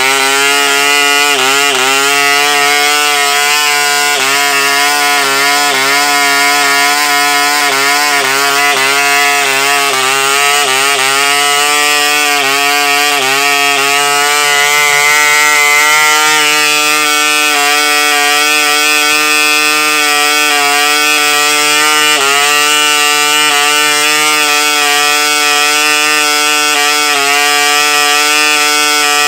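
AMCO 3.5cc two-stroke model diesel engine running on a test stand, turning a 10x6 propeller with a steady buzz. Its pitch wavers over roughly the first dozen seconds, then holds even.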